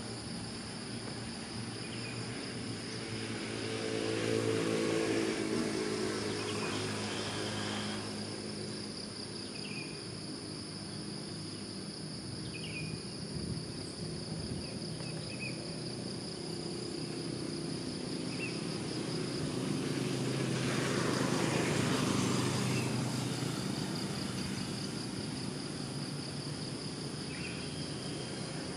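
Outdoor ambience: insects keep up a steady high drone while short bird chirps come now and then. A motor vehicle passes about four seconds in, and another, louder one passes about twenty seconds in.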